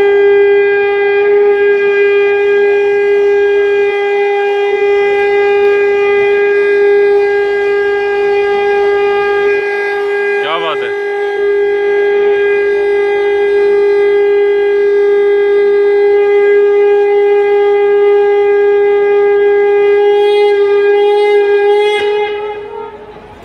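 Conch shell (shankh) blown in one long, steady, unwavering note, held for about twenty-two seconds before it fades away near the end.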